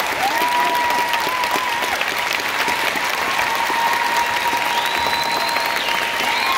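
Concert audience applauding and cheering after a song, dense clapping throughout with long held cries rising above it.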